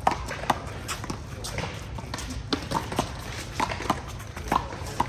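Handball rally: a quick, irregular series of sharp smacks as the small rubber ball is struck by hand and bounces off the wall and pavement, with some short ringing squeaks among them.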